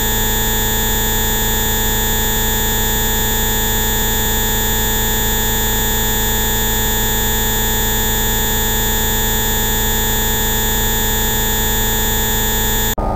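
A dense set of steady synthesized tones sounding at many pitches at once, a 'Rife frequency' bioresonance tone complex, holding unchanged. Near the end it cuts off abruptly and gives way to a different, lower set of tones.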